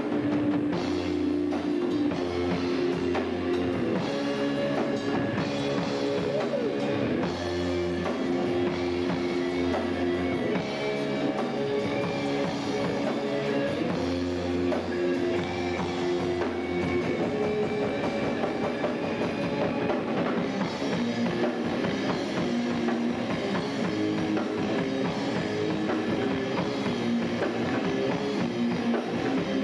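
Rock band playing live: electric guitars, bass guitar and drum kit running through a repeating riff, which changes to a new pattern about halfway through.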